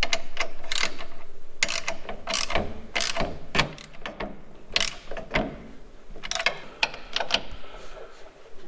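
Socket ratchet wrench clicking through repeated strokes, tightening the bolts that hold an aluminum spacer up under a front strut. The clicking is densest and loudest in the first two seconds, and a few sharper metal clicks stand out later.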